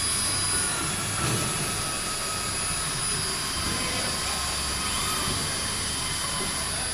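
CNC router running: a steady machine noise with a high, constant whine over a hiss.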